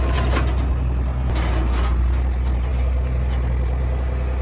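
An engine running steadily at a low, even hum, with a few short rattling noises near the start and about a second and a half in.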